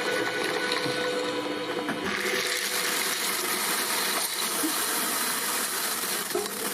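Electric watermelon-cutting machine running with a steady motor hum; about two seconds in its noise turns fuller and hissier.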